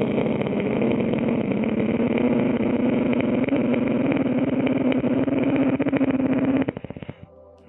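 A long, loud ujjayi pranayama breath drawn in through a deliberately constricted throat: a rough, snore-like rasp with a low hum in it that rises slightly. It breaks into a flutter near the end and then stops.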